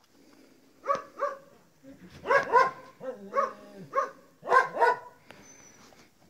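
A dog barking: about eight short, sharp barks, several in quick pairs.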